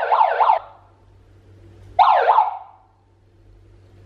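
Handheld megaphone's built-in siren: a loud falling wail repeating about four times a second that cuts off under a second in, then one short falling whoop about a second later.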